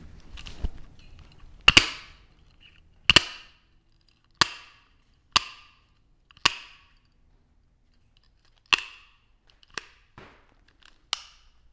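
Tin snips cutting galvanized chicken wire (poultry netting): a series of about eight sharp metallic snips, roughly one a second, each with a short ring, as the wire strands are cut one after another.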